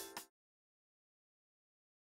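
The last drum hit of an electronic music track dies away about a quarter second in, then complete silence.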